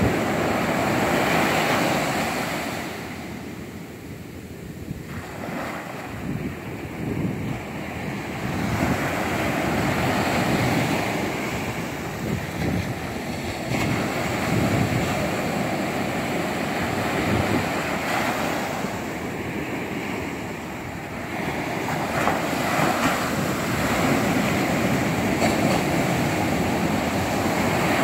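Ocean surf breaking on the beach and washing up the sand, a steady rush that swells and eases as each wave comes in.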